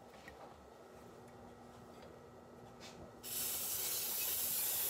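Coconut-oil non-stick cooking spray hissing out of its aerosol can onto a pan: one steady spray of about two seconds, starting about three seconds in.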